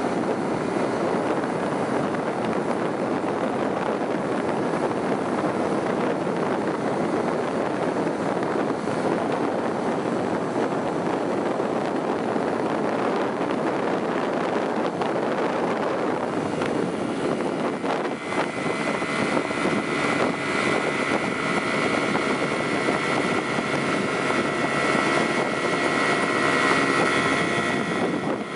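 Steady travel noise inside a moving vehicle, a dense rumble of running gear and wind. About two-thirds of the way in, a steady whine of several high tones joins it.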